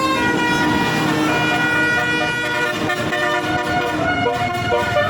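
Tour bus's Basuri telolet horn, a multi-trumpet musical air horn, playing a tune of several notes held together, the chord changing every second or so.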